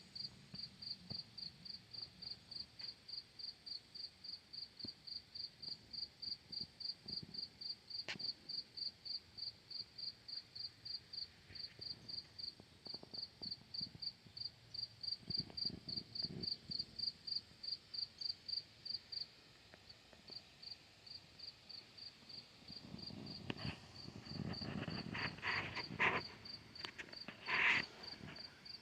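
Cricket chirping in a steady, even rhythm of short high chirps, about two to three a second, with a brief pause about twenty seconds in. A few louder, unidentified sounds come near the end.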